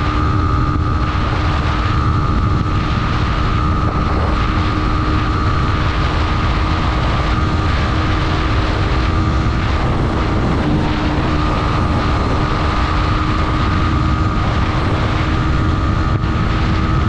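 Yamaha MT-15's single-cylinder engine running hard at speed during a top-end run, a steady drone with a steady whine on top, under heavy wind rush on the rider's microphone.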